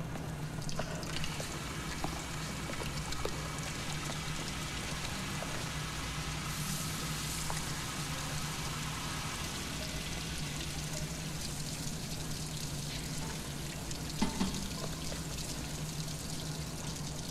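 Water running from taps into a stainless-steel trough sink as hands and faces are washed, over a steady low hum. A couple of small knocks come about three-quarters of the way through.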